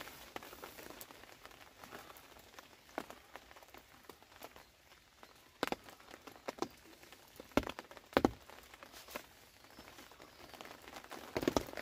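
Irregular light taps of raindrops on a fishing umbrella's canopy over a faint hiss, with a few sharper clicks from small tackle being handled a little past halfway and again near the end.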